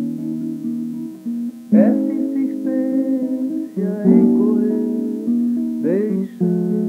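Acoustic guitar playing an instrumental passage from a 1981 cassette recording: chords struck three times, about two seconds apart, with the notes ringing on between the strokes.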